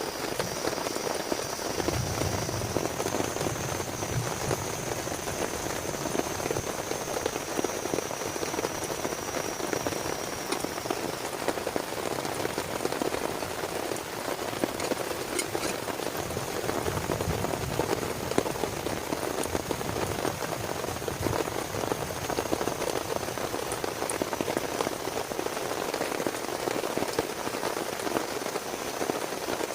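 Heavy rain falling steadily, a dense even hiss full of tiny drop ticks.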